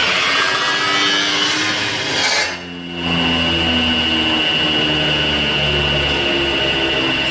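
CNC metal spinning machine at work: a hissing, scraping noise as the forming roller works the spinning sheet metal. About two and a half seconds in it dips briefly, then gives way to a motor whine with a steady high tone and lower hums that step up and down as the axes move.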